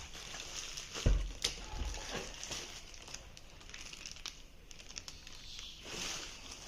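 Packaging being handled: rustling and crinkling with scattered small clicks, and a knock about a second in.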